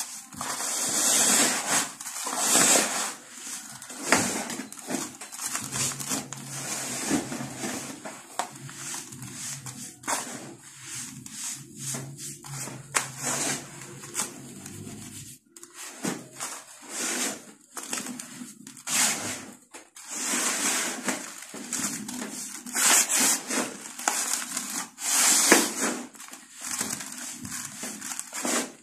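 Dry, gritty dirt being grabbed and crumbled by hand: a crisp, crunchy rustle of grains rubbing and falling, coming in uneven surges as each handful is squeezed and dropped.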